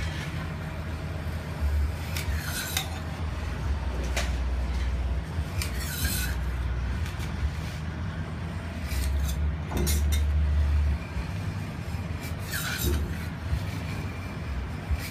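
Metal spatula scraping a thin sheet of frozen ice cream off a chilled steel cold plate to roll it up, a rasping stroke every second or two, over a low hum.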